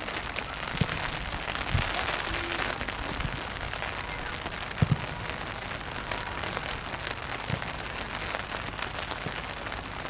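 Steady hissing rush of outdoor noise, broken by a few dull thumps, the loudest about five seconds in.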